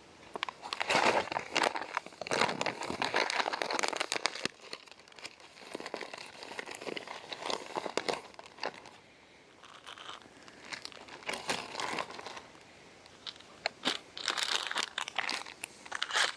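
Clear plastic bag and foil food pouches crinkling and rustling as they are handled and packed into the bag, in irregular bursts with a couple of short pauses.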